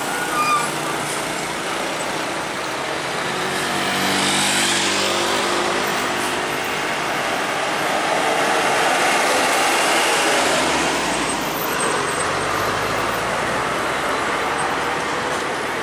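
Heavy tractor-trailer hauling an ISO tank container passing close by, its diesel engine running over tyre and road noise, with more traffic going by near the end.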